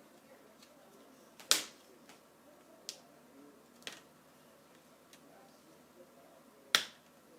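Plastic laptop screen bezel being pried off by hand, its snap-on clips popping loose with sharp snaps: two loud ones about a second and a half in and near the end, and a couple of lighter clicks between.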